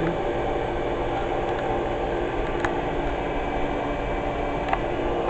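Carrier 38BRC central air-conditioner condensing unit running: a steady hum from its condenser fan and Copeland scroll compressor, with a few steady tones held under the fan noise.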